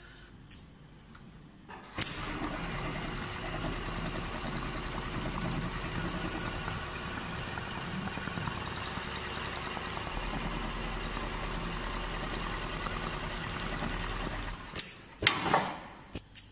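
Richpeace CNC pattern sewing machine starting up about two seconds in and stitching steadily for about twelve seconds, then stopping. Near the end comes a short, loud rush of noise and a couple of sharp clicks.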